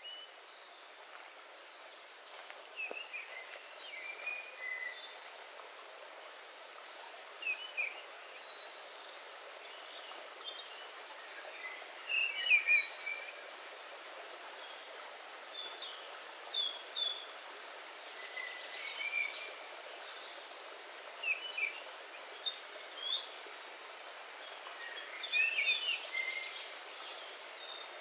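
Small forest stream running over rocks as a steady rushing hiss, its low end filtered out. Several songbirds chirp and sing short phrases over it throughout, loudest a little before halfway.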